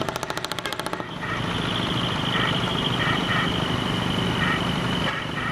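Large diesel truck engine running through a split exhaust manifold (mani-wari), giving a rough, pulsing exhaust note. About the first second is a rapid, even pulsing, then a steady rumble.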